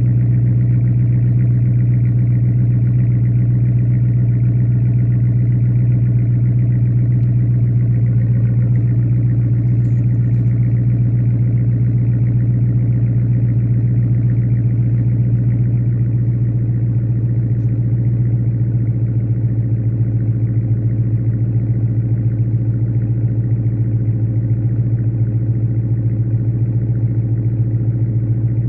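2016 Dodge Challenger R/T's 5.7-litre Hemi V8 idling steadily on a semi-cold start, exhausting through steel-wool-packed Porter mid-mufflers with the rear resonators deleted, a deep even burble with no revs.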